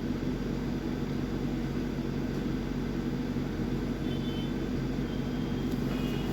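A steady low mechanical hum, with faint brief high tones about four and six seconds in.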